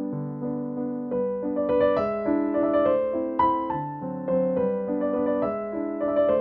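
Background piano music: a melody of struck notes over chords, each note fading after it sounds.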